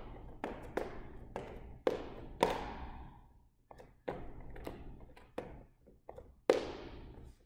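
Fencing footwork: sneakers striking a hard gym floor in quick advances and retreats, about a dozen sharp steps at uneven spacing, the loudest about two and a half and six and a half seconds in.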